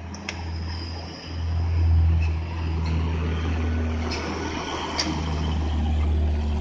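Diesel engine of a Hino six-wheel cargo truck running as the truck pulls slowly past; a deep, steady drone that swells loudest about two seconds in. A few brief sharp clicks sound over it.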